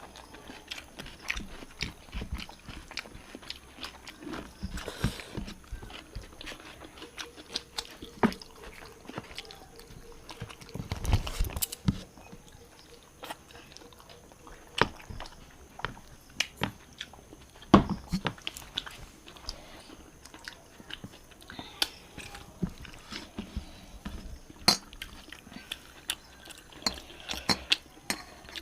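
People chewing and eating a meal of rice and fish curry, with many wet mouth clicks and smacks and a few louder knocks about eleven and eighteen seconds in.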